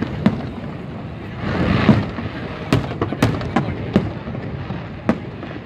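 Aerial fireworks bursting: a swelling boom about two seconds in, then about half a dozen sharp bangs in quick succession.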